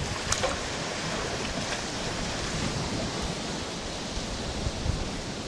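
Steady wash of surf and moving water, with a couple of short splashes about half a second in from a New Zealand fur seal slapping its flippers on the water.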